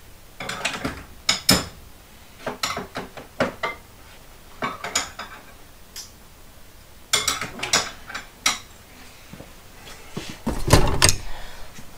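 Steel breaker bars clinking and clanking against each other and the tool cart as they are picked up and put away, in several short bursts of knocks. The loudest and deepest clunk comes near the end.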